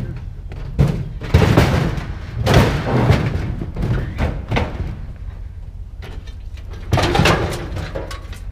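Scrap being shifted and set down on a trailer: a series of heavy thumps and bangs, clustered in the first three seconds and again about seven seconds in, over a steady low rumble.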